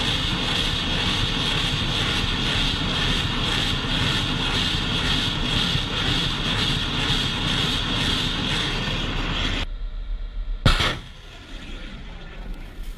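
Rocket motors of a multiple rocket launcher firing, a loud steady rushing roar. It drops away suddenly about ten seconds in, followed by a single sharp crack and a fainter rumble.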